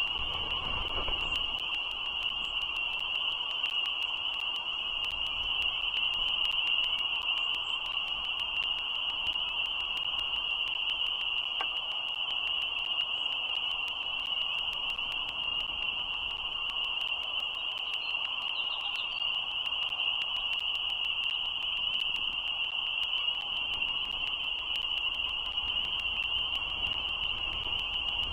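A dense outdoor frog chorus: a steady, unbroken high-pitched peeping drone.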